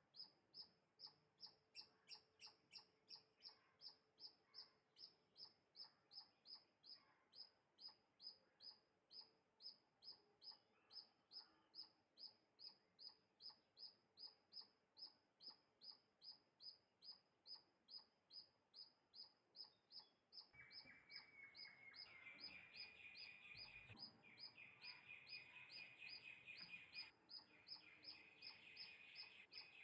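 A bird chirping over and over, short high calls about twice a second in a very even rhythm. About two-thirds of the way through, a steady high trill joins in and continues alongside the chirps.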